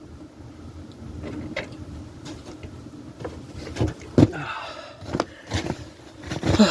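Scattered clicks and knocks of hand tools and parts being handled while working at a truck's exhaust manifold bolts, irregular and unevenly spaced, with two louder knocks, one about four seconds in and one near the end.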